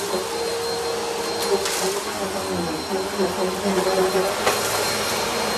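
Bissell upright bagless vacuum cleaner running steadily as it is pushed back and forth over a rug, its motor note wavering up and down with the strokes, with a few brief rattles as crushed food debris is sucked up.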